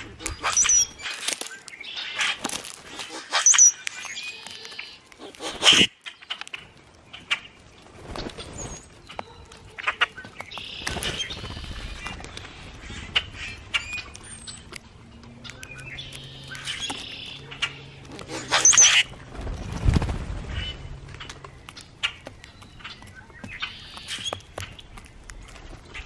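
Several common grackles calling at a seed feeder: a scatter of short harsh chack notes and squeaky high whistles, loudest about three quarters of the way through.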